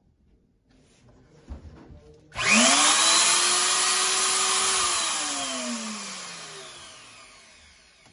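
A-V350 grain mill grinder's electric motor switched on, spinning up within a fraction of a second to a loud, steady high whine, then switched off after about two and a half seconds and winding down with a falling pitch. It is a test run after the fuse was replaced, showing that the mill runs again. A few light handling knocks come before it starts.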